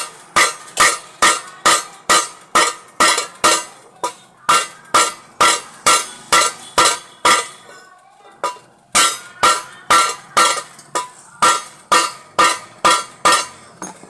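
A hammer striking a metal pressure-cooker part in a steady rhythm, about two to three ringing metallic blows a second, with a short break about seven seconds in.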